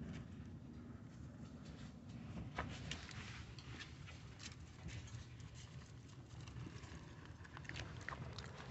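Chihuahua puppy digging in loose dirt: faint, irregular scratching and scraping of paws in the soil.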